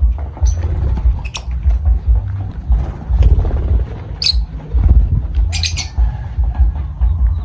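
Pet lovebirds giving a handful of short, shrill squawks, spaced a second or more apart, over a heavy uneven low rumble.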